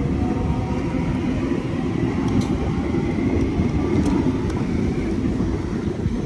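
A train passing: a loud, steady rumble with faint whining tones above it.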